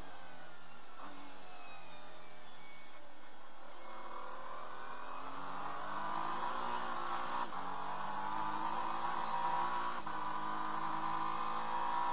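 Acura NSX GT3 race car's twin-turbo V6, heard inside the cockpit, running at lower revs before climbing in pitch and growing louder from about four seconds in as the car accelerates, with two brief dips later on.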